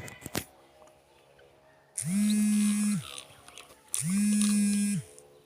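Mobile phone buzzing for an incoming call: two buzzes of about a second each, two seconds apart, starting about two seconds in, each a steady low hum that swells up and sags away at its ends.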